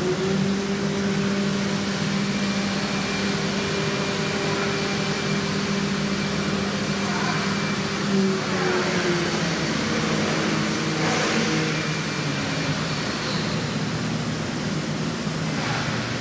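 CNC machining center running, its spindle cutting foam under a steady rushing noise. A steady hum holds one pitch for about the first half, then drops and shifts to other pitches.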